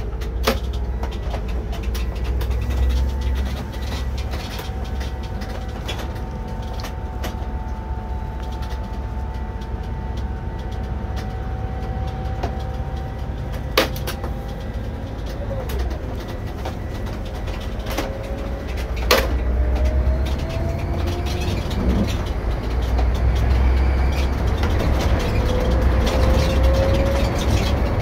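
Irisbus Récréo II coach driving along, heard from the driver's seat: a steady low engine and road rumble with a drivetrain whine whose pitch slowly drifts and climbs as the bus gathers speed. A few sharp knocks or rattles come through, one about fourteen seconds in and another about nineteen seconds in.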